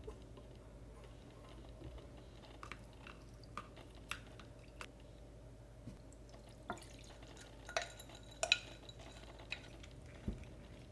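Quiet, scattered clinks and taps of a glass Weck jar and a small cast-iron pot while the jar's rice and dried vegetables are tipped into the pot, with a run of sharper clinks a little past the middle.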